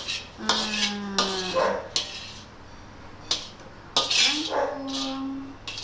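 Dishes and cutlery clattering, with several sharp clinks of spoons against plates and pots. Two drawn-out, even-pitched whine-like tones come in between, the first about half a second in and the second near the end.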